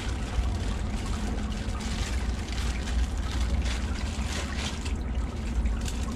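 Plastic packaging crinkling and rustling as it is handled, a run of short crackles strongest through the middle, over a steady low rumble.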